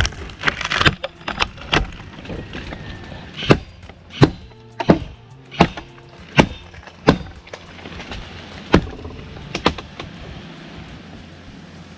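Chopping strokes into a tree limb: about a dozen sharp strikes at uneven intervals, mostly a half to one and a half seconds apart.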